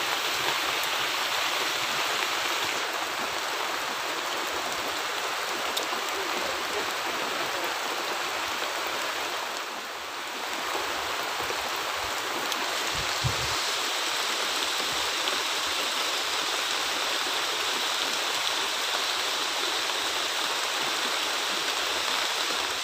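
Steady rain falling on water and leaves, an even hiss throughout, briefly softer about ten seconds in. A soft low thump about thirteen seconds in.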